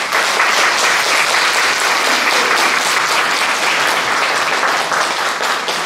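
Audience applauding, loud from the start and easing slightly near the end.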